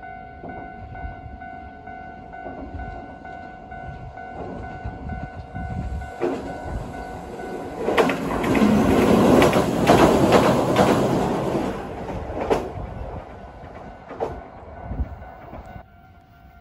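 A train passing close by, building up, then loudest for about four seconds in the middle as its wheels clatter over the rail joints, and fading away.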